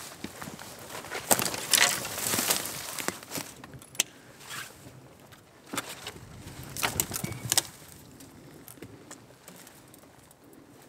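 Hiking footsteps crunching on dry ground and brush, with gear clinking and rattling at the hiker's pack. Louder in two stretches, about two seconds and seven seconds in, and quieter near the end.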